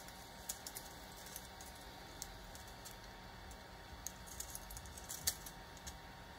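Faint, scattered light clicks and taps of hand-held 3D-printed PLA test prints being handled and brought together, the loudest about five seconds in.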